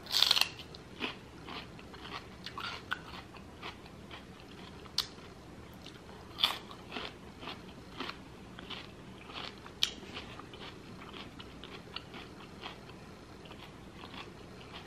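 A bite into a raw celery stick with a loud crisp snap, followed by irregular crunching as the celery is chewed.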